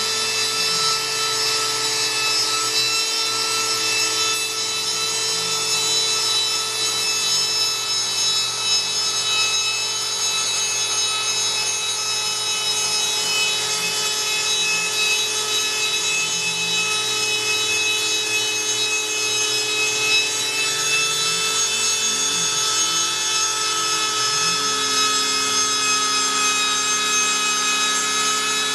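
Homemade CNC router cutting a carbon fiber sheet: the router spindle runs with a steady whine as the bit grinds through the material, while lower motor tones rise and fall again and again as the machine's axes speed up and slow down along the cut.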